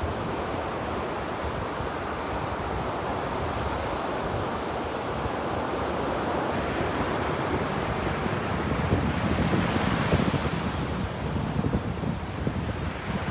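Ocean waves washing onto a beach: a continuous surf hiss that swells into a louder surge of breaking water about two-thirds of the way through, then eases back.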